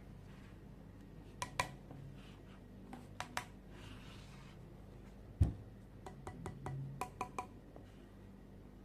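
Agar60 mechanical keyboard being handled and pressed: sparse sharp plastic-and-metal clicks, in pairs and then a quick cluster, with one heavier thump about halfway through as it is set down or knocked.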